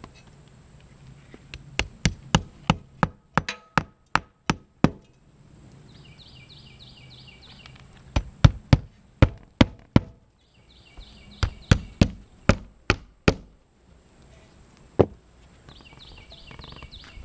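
Hammer driving nails into the roof in three quick runs of blows, about three a second, with a single blow near the end. Short, high chirping trills sound in the pauses between the runs.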